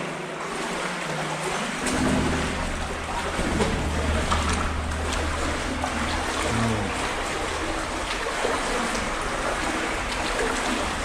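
Water splashing and running through a flooded brick tunnel as people wade along it, a steady wash of noise with a low rumble joining in about two seconds in.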